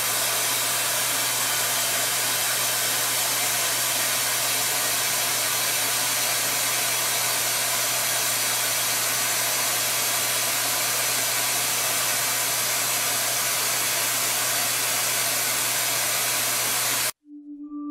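Suction drawing air through the ZyberShield's intake nozzle: a steady rush of air over a low motor hum, pulling dry-ice fog into the shield. It cuts off abruptly near the end.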